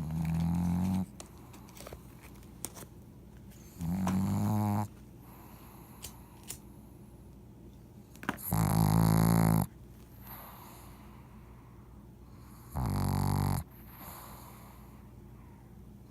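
A pug snoring loudly in its sleep: four long, buzzy snores, one about every four seconds, the third the loudest and longest.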